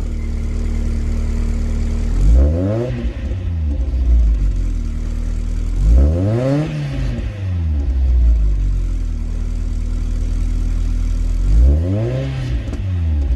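Toyota AE86 Corolla Levin's engine idling and revved three times, about four to five seconds apart, each blip rising quickly and falling back to idle.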